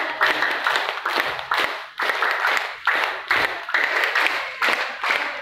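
Many people clapping together in a steady rhythm, about three to four claps a second.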